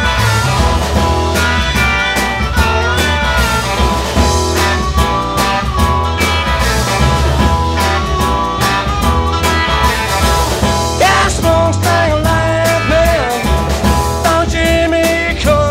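1960s British blues-rock band playing live: a steady bass and drum groove under electric guitar, with a lead line that bends up and down in pitch.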